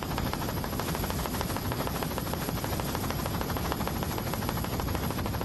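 Helicopter rotor and engine noise, a steady, fast chop.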